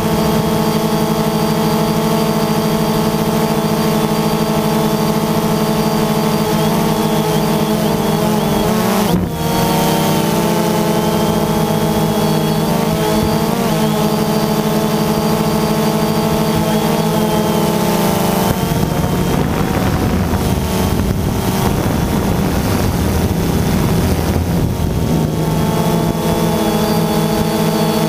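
DJI Phantom 2 quadcopter's electric motors and propellers whirring steadily, close to the microphone of the GoPro mounted on it. The pitch wavers and shifts for several seconds past the middle as the motors change speed, with a brief dip about nine seconds in.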